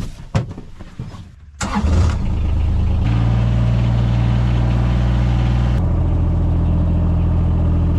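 A few clicks, then about a second and a half in a vehicle engine cranks, catches and runs steadily, its note shifting a couple of times.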